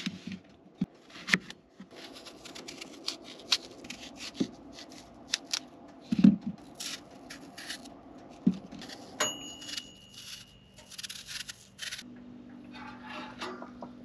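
Kitchen knife cutting and paring an apple on a wooden cutting board: crisp cuts through the fruit, scraping of the blade, and dull knocks of the knife on the board, the loudest about six seconds in. A high steady tone sounds for about two seconds past the middle, and a low hum starts near the end.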